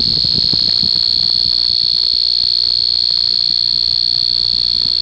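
Piezo beeper fitted to a modified K-II EMF meter sounding one steady, loud, high-pitched tone. The meter is alarming at its top reading, all five LEDs lit, from the strong electromagnetic field of an electric fan.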